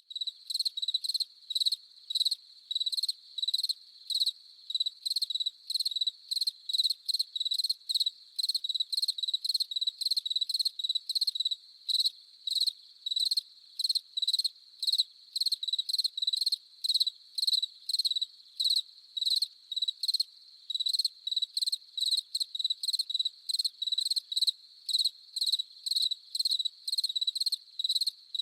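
A single cricket chirping close up, about two to three short high chirps a second, over a faint steady chorus of other crickets.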